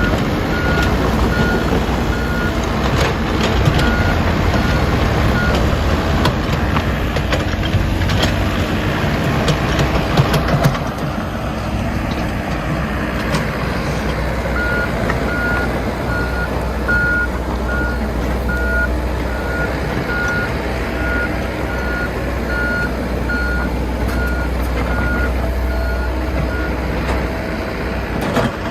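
Heavy diesel machinery working under load, the engine running with a low rumble, and a reversing alarm beeping about twice a second. The beeping pauses for several seconds in the middle. The engine is louder and rougher for about the first ten seconds, then eases to a steadier run.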